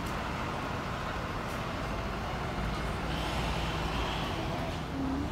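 Street traffic: a steady outdoor rumble of vehicle engines that swells in the middle, with a faint high whine joining briefly.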